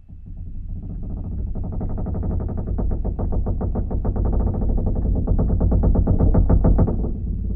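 Ocean liner's deck creaking: one long drawn-out creak made of rapid ticks over a low rumble. It grows louder toward the last second or so, then eases off.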